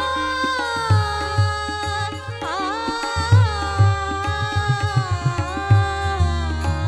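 Woman singing a Marathi devotional abhang in long, ornamented held notes, accompanied by a harmonium drone and low hand-drum strokes keeping the beat.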